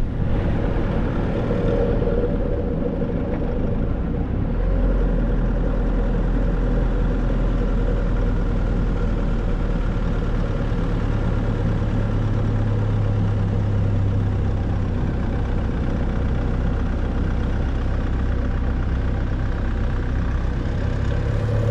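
Nissan Navara D40 ute's engine running at a steady, unchanging drone, with no revving.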